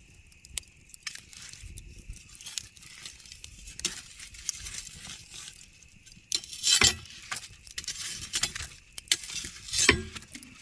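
Campfire crackling, with irregular small snaps and a couple of louder pops about seven and ten seconds in.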